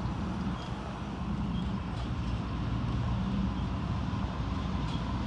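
Diesel locomotive engine drone of an approaching BNSF freight led by a GE ES44C4, a steady low hum growing slowly louder.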